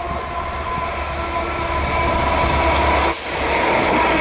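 Class 67 diesel locomotive with its two-stroke V12 engine humming low as it runs through with a freight of tank-container wagons, and a steady high squeal from the wheels. About three seconds in the sound cuts to the loaded container flats rolling past, louder, with the squeal still present.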